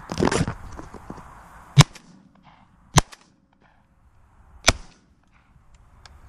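Double-barrelled shotgun fired twice, about a second apart, each a sharp report, followed by a further sharp crack a couple of seconds later as the gun is handled. A loud burst of handling noise comes right at the start.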